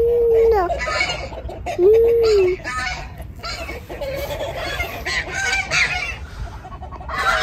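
Domestic geese and other farmyard fowl calling: two drawn-out honks in the first couple of seconds, then a run of short, rapid clucking calls.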